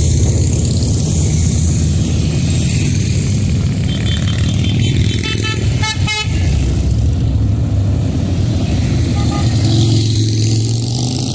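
A stream of motorcycles riding past with a steady engine rumble. A horn sounds several short honks about four to six seconds in.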